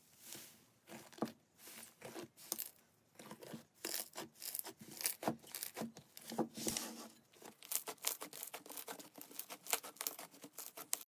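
Slime being handled, giving an irregular run of small crackles and pops, sparse at first and much denser after about three seconds.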